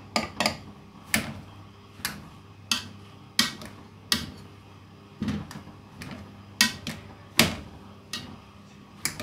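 A utensil knocking and scraping in a cooking pot, about a dozen sharp clinks at an uneven pace of roughly one every 0.7 seconds.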